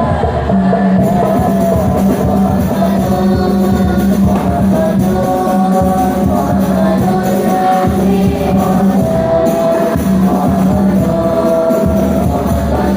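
Islamic devotional song (sholawat): a voice singing a melody over music with hand percussion and a steady low note.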